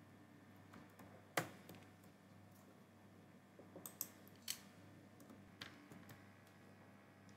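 A few sharp, scattered clicks of a computer mouse and keyboard, the loudest about a second and a half in and a small cluster around four seconds, over a faint steady hum.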